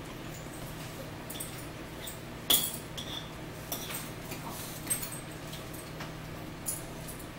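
Cutlery clinking against dishes while eating at a table: one sharp clink about two and a half seconds in is the loudest, then several lighter clicks, over a steady low hum.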